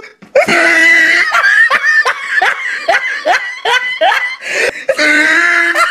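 Loud human laughter: a long held cry near the start and another near the end, with a run of short, rapid laughs in between.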